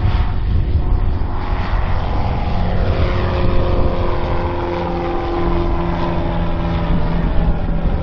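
Cessna tow plane's single piston engine and propeller at full power, towing a glider off the runway on an aerotow launch. The engine note falls as the plane passes, about three seconds in, over a steady low rumble.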